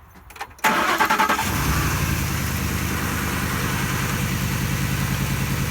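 2007 Ford Expedition's 5.4-litre V8 cranked by the starter, catching within about a second and settling into a steady idle.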